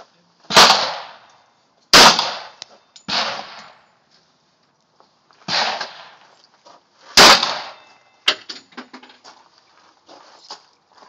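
Handgun shots: five shots spread irregularly over about seven seconds, three of them louder and sharper than the other two, followed by a single sharp click a second later.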